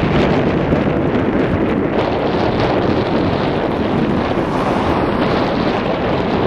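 Wind buffeting the camera microphone: a loud, steady rush of noise with a fluttering low rumble.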